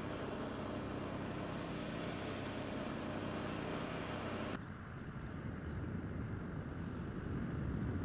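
A steady motor hum with outdoor background noise. About four and a half seconds in it cuts abruptly to a rougher, lower engine-like noise.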